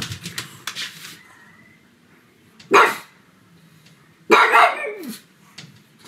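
Pug barking twice: a short bark about three seconds in, then a longer bark about a second later whose pitch slides down at the end.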